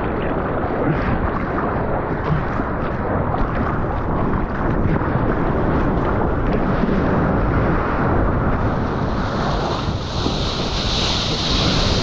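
Wind buffeting a GoPro's microphone over a steady rush and splash of seawater around a surfboard. A brighter hiss of breaking whitewater swells up near the end.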